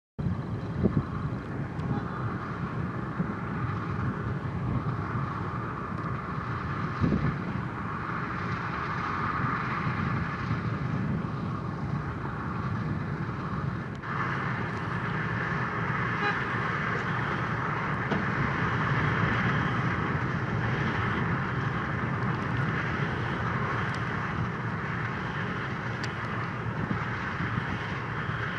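Heavy road-construction machinery running steadily: a Wirtgen W210i cold milling machine cutting away the old road base, with dump trucks working alongside. About halfway through the sound turns brighter and louder, and there are a couple of short knocks near the start.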